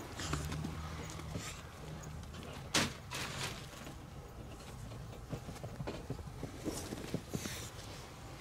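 Mink moving through gravel, straw and feathers under a wooden board: light rustling and scratching with scattered small clicks, and one sharper knock about three seconds in.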